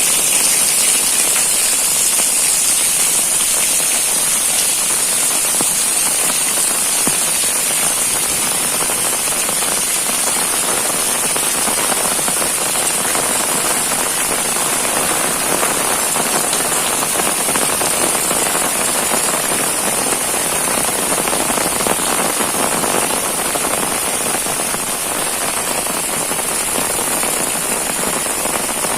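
Heavy rain pouring steadily, a dense even hiss of drops striking surfaces.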